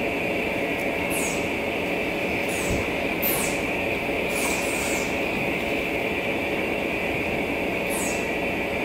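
Steady drone of machinery running, with a band of hiss, and short high falling chirps recurring every second or so.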